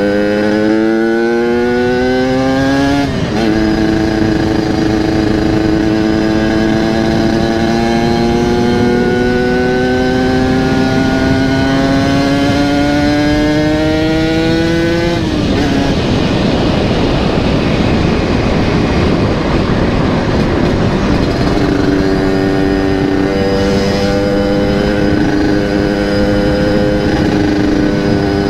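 Yamaha RX-King two-stroke single-cylinder engine with an aftermarket exhaust, ridden through the gears. The pitch climbs, drops at a shift about three seconds in, then climbs slowly for about twelve seconds. The engine note then gives way to a rushing noise for several seconds before settling at a steady pitch. The rider reads the engine's pull as a sign that the carburettor is running lean.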